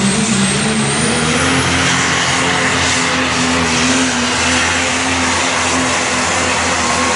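Super stock diesel four-wheel-drive pickup's engine running hard at full throttle, pulling the weight-transfer sled. The loud, steady engine note holds through, with a faint high whistle rising in pitch over the first second or two.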